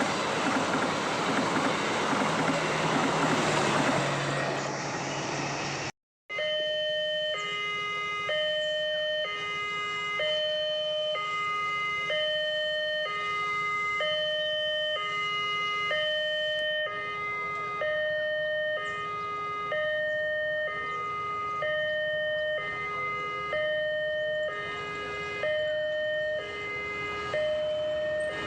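A train running past with loud wheel and rail noise for about six seconds, then after a short break a level-crossing warning alarm sounding a steady two-tone hi-lo pattern, each note held about a second.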